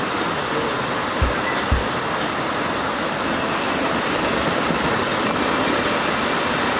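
River water rushing steadily, with two short low thumps about a second in.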